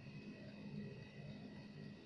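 Faint steady hum with a few steady high tones: quiet room tone, with no distinct sound events.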